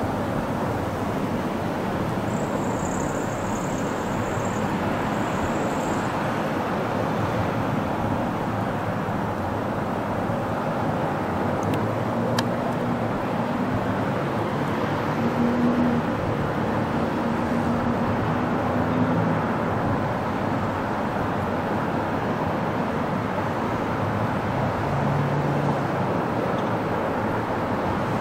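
MBTA commuter train pulling away: the steady rumble of the diesel-hauled train rolling on the rails, with a faint high whine early on.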